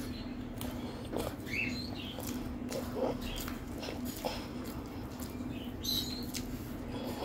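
Close-up mouth sounds of someone eating rice by hand: chewing, wet lip smacks and small clicks, scattered irregularly. A low steady hum runs underneath.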